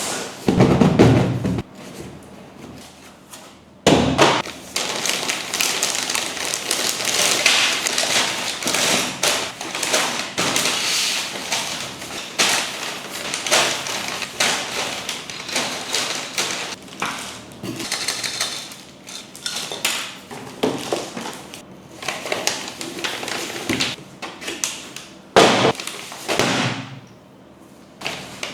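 Unboxing handling noise: a cardboard box and the plastic bags of parts inside it being handled, rustling and crinkling, with many taps and several heavier thumps.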